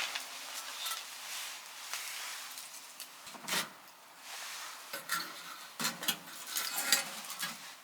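Scattered light clinks, knocks and rustling of small objects being handled, with the clearest knock about three and a half seconds in and a cluster of clicks in the second half.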